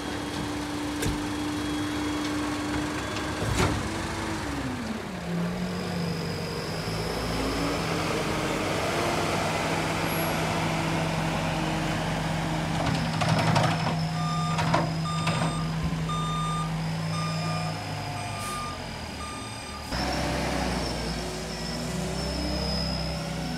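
A heavy waste-collection vehicle's engine runs steadily, its pitch shifting as it works, with a sharp knock early on. Past the middle a reversing beeper sounds a regular series of short beeps, about three every two seconds, for roughly five seconds.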